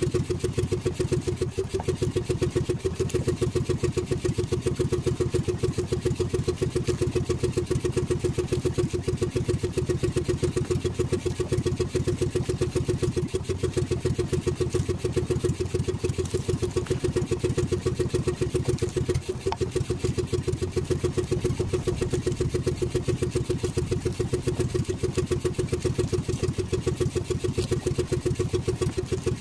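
Outrigger fishing boat's inboard engine idling, a steady, rapid putter that holds even throughout.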